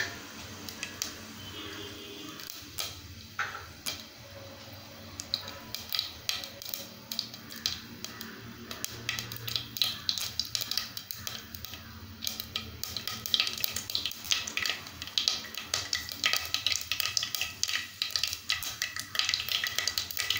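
Mustard and fennel seeds crackling and popping in hot oil in a nonstick pot, the pops sparse at first and growing thicker and louder from about six seconds in as the seeds splutter. This is the tempering stage, the sign that the oil is hot enough.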